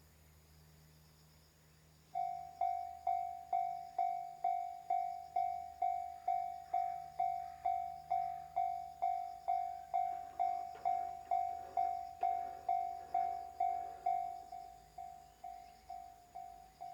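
Japanese railway level-crossing warning bell starting up about two seconds in and ringing a clear, steady ding at about two strikes a second, the signal that a train is approaching. Near the end it rings more quietly.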